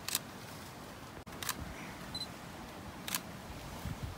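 Camera shutter clicking three times, about a second and a half apart, with a short high beep between the second and third clicks.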